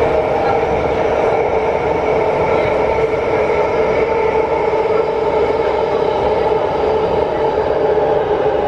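Wagonmash 81-series metro train (81-573.2 car) running through a tunnel, heard from inside the car: a steady, loud rumble of wheels on rail with a steady whine of several tones over it.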